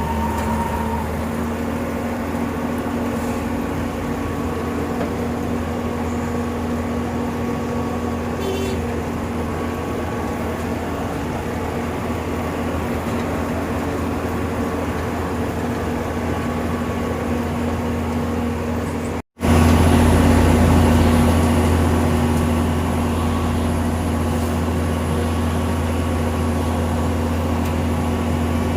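Heavy diesel engine of road-tarring machinery running steadily at constant speed. About two-thirds of the way through, the sound cuts out for an instant and comes back louder.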